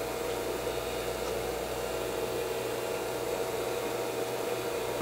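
Laser Stars star-and-cloud projector running, giving off a steady mechanical hum and whir from its small motor.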